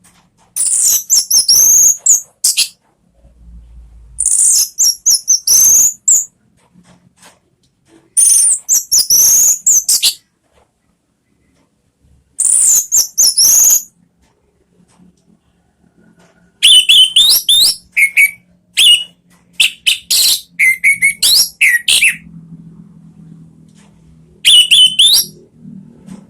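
Orange-headed thrush singing: loud phrases of rapid, very high twittering, each a second or two long, with short pauses between them. From about the middle the phrases also carry lower, slurred whistled notes.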